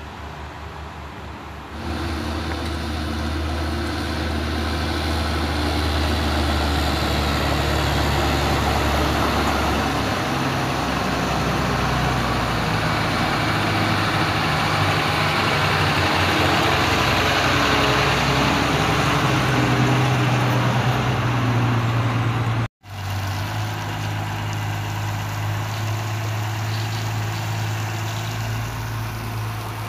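Diesel engine of a pneumatic-tyred road roller running steadily close by, louder and hissier as the machine works past over gravel. The sound cuts out for a moment about three-quarters of the way through, then the engine runs steadily again.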